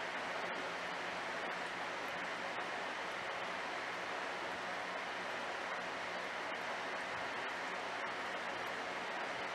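Steady hiss of moving water from aquarium filtration, with a low, even electrical hum underneath.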